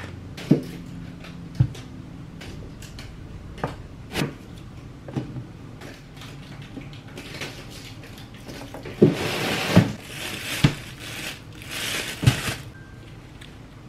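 Food being set down on a kitchen counter: a plastic food tray, tomatoes and peppers land with scattered light knocks. In the second half a plastic bag holding a lemon rustles twice, with a few sharper knocks.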